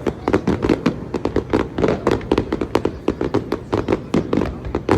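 Fireworks going off in rapid succession: many sharp bangs and pops a second, irregularly spaced, over a continuous low rumble.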